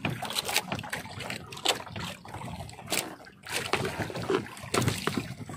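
A wet fishing net being hauled by hand into a wooden boat: water dripping and splashing off the mesh, with many short clicks and knocks as it drags over the side.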